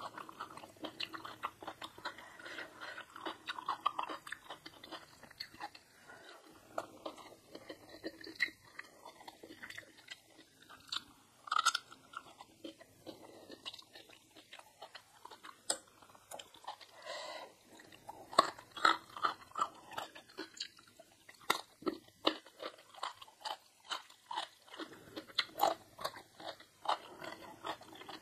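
A person eating, heard as crisp crunching bites and wet chewing in an irregular run of crackles, with a few louder crunches near the middle and in the second half.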